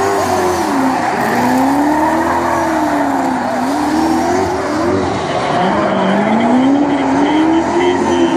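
Two drift cars sliding in tandem, their engines revving up and down over and over as the drivers work the throttle, with tyres skidding and squealing throughout. The engine note dips about a second in, again around three and a half and six seconds, and climbs near the end.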